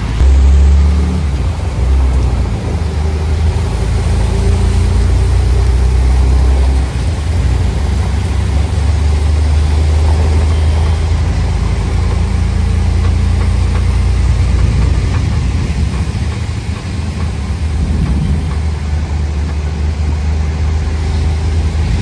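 Auto-rickshaw's small single-cylinder engine running as it drives, heard from inside the open cabin, with a steady hiss of heavy rain and wet road underneath the low engine rumble.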